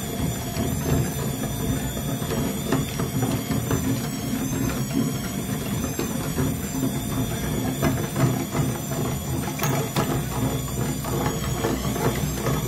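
Metal meat grinder crushing colored chalk sticks: a steady mechanical grinding with many small crackling crunches.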